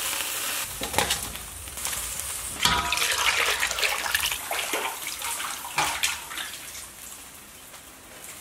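Water splashing and pouring as blanched pig's head pieces are scooped out of a boiling wok into a steel basin and rinsed, with a few sharp clinks of metal utensils against the steel.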